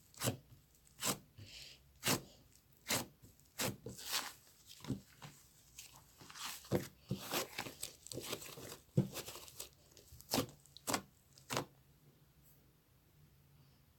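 A run of sharp clicks and crinkly rustles, about one or two a second, from something handled close to the microphone. It stops a couple of seconds before the end.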